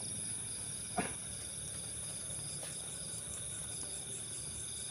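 Night chorus of crickets and other insects: a steady high-pitched trill with rows of evenly pulsing chirps beneath it. A single short knock about a second in.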